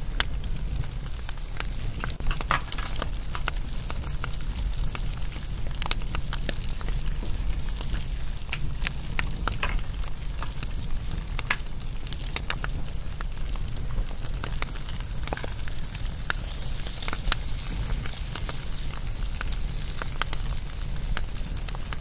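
Bonfire crackling: a steady low rumble of burning with scattered, irregular pops and snaps.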